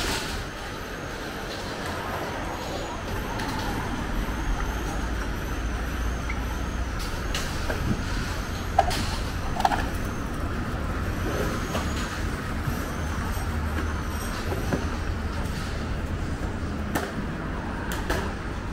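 City street traffic noise: motor vehicles running and passing, a steady low rumble with a few sharp clicks scattered through it.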